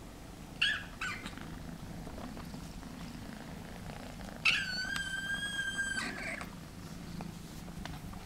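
Egyptian Mau kittens purring steadily, with two short high mews just over half a second in and one long, level mew lasting about a second and a half near the middle.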